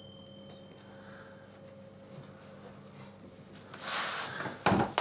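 A faint steady hum, then near the end a short scrape and a metallic clatter as the empty metal baking sheet is handled at the oven.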